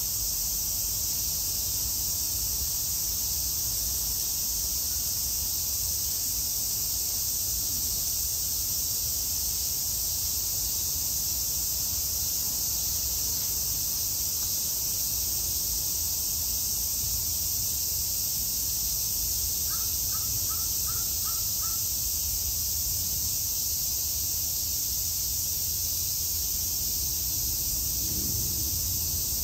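Steady high outdoor insect drone, with a quick series of about six short bird calls about twenty seconds in.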